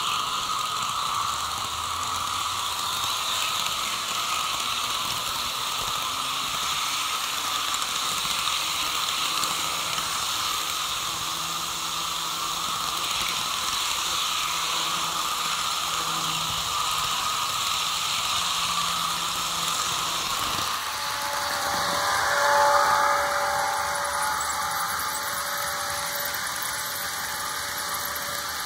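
Steady whir of a small electric motor; about 21 s in the sound changes and two steady tones join it, with a brief swell about a second later.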